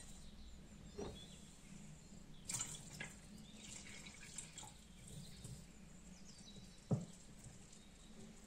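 Water poured from a drinking glass into a bowl of pancake batter, trickling and splashing faintly. A few light taps come with it, and a single knock sounds near the end.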